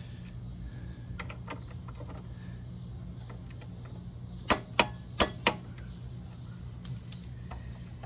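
Small ratchet wrench clicking on a front brake caliper bolt of a Honda GL1500 Gold Wing: light scattered clicks, then four sharp clicks in quick succession a little past halfway. The bolt keeps turning without tightening up, which the owner fears means its threads are stripping.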